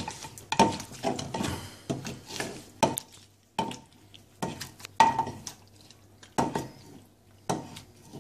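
Wooden pestle pounding wet ingredients (lime, tomatoes, long beans, sugar) in a clay som tam mortar: about a dozen irregularly spaced knocks, each with a short ring.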